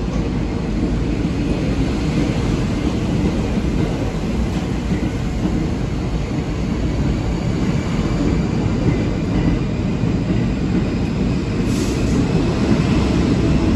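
R46 New York City subway train running past the platform: a steady rumble of wheels on rail that grows slightly louder, with a faint whine rising in pitch near the end.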